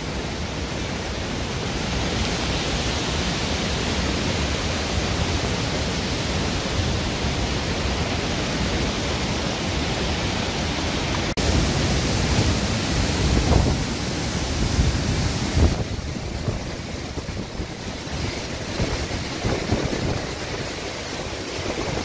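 Waterfall in full spate: a loud, steady rush of white water pouring and crashing over rock. About eleven seconds in, uneven low buffeting on the microphone comes and goes over the rush.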